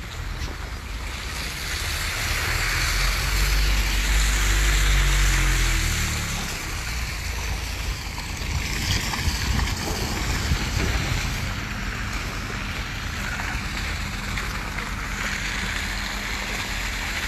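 Wind rushing over a phone's microphone, with the engine of a passing vehicle rumbling, loudest about three to six seconds in.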